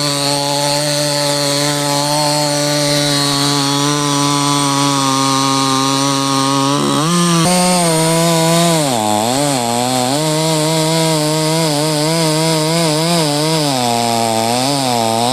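Two-stroke chainsaw running at a steady speed. About seven seconds in, its pitch starts swinging up and down, dipping again and again as it is throttled and loaded while cutting into the neem wood.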